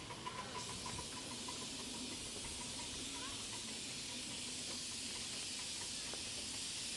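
A 5-inch gauge live-steam double Fairlie locomotive giving off a steady hiss of escaping steam, which strengthens about half a second in.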